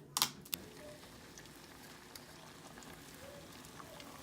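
Plantains frying in hot oil in a pan, a faint steady sizzle. Two short clicks come just after the start.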